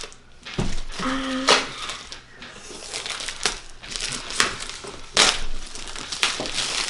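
Clear plastic wrap crinkling and crackling as it is peeled and pulled off a cardboard headphones box, in irregular rustles with a few sharper crackles.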